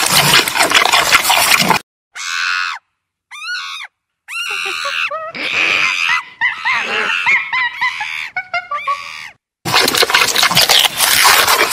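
Squirrel monkeys calling: high, squealing chirps that bend up and down in pitch, in short bouts broken by brief silences, with a fast twittering run in the middle. Before and after the calls there is a rough, crackling noise.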